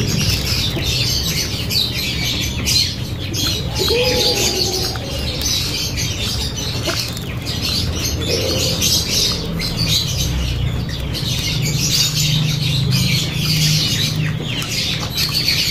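Woven young coconut-leaf pouch (puso) rustling and crinkling as fingers loop and thread its loose strands through to close it. Birds chirp throughout, with a couple of short low calls around 4 and 8 seconds in.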